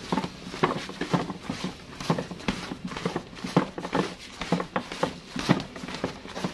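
Chicken pieces tossed and pressed fast by hand in a plastic basin of flour: irregular dull thumps, a few a second. This is the third flour dredging, done at speed to give the fried chicken a crinkly crust.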